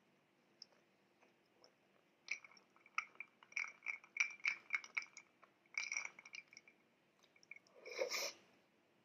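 Fingers pushing a piece of bread down into a glass mug of strawberry milk: a rapid run of small clicks and wet squishes against the glass for a few seconds. Near the end comes one louder bite of the soaked bread.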